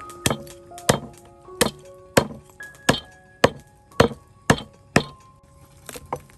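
Cleaver chopping raw meat on a wooden chopping block: about nine sharp strikes, roughly two a second, stopping about five seconds in, over soft background music.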